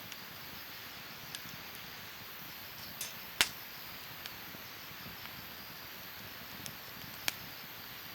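Wood fire crackling in a Snow Peak fire pit: a steady soft hiss with scattered sharp pops, the loudest about three and a half seconds in and another near seven seconds.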